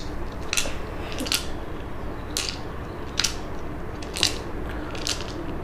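Small pebbles clicking against each other in a hand: about six short, sharp clicks at uneven intervals roughly a second apart, over a steady low room hiss.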